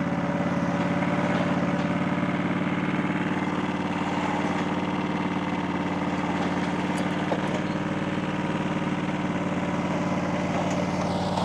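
AS Motor 901 flail mower's engine running steadily at constant speed.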